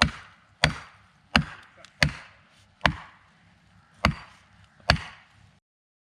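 Seven sharp axe strikes at a steady pace, a little under a second apart, each with a short ring after it. The sound cuts off abruptly near the end.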